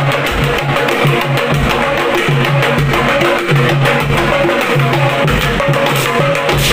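Music with plucked guitar and drums playing.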